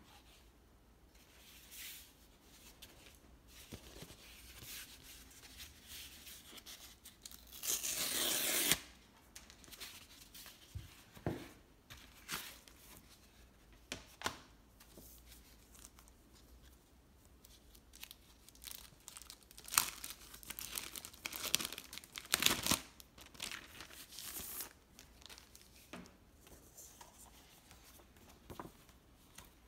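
A cardboard mailer being torn open by hand, with one long tear about eight seconds in. Short rustles, taps and paper sliding follow as paper sheets and a plastic sleeve are handled, busiest near two-thirds of the way through.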